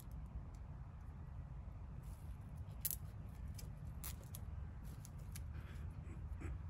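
Zip ties being fastened around the wire of metal H-frame yard-sign stakes: a few faint sharp clicks from the ties and the wire being handled, over a steady low rumble.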